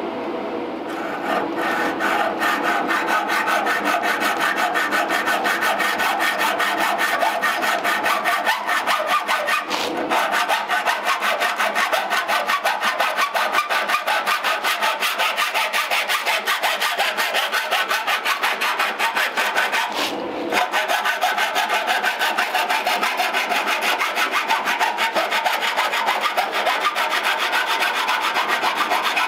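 Hacksaw cutting through a metal port on a car radiator's tank, in steady back-and-forth strokes of about two a second, pausing briefly twice.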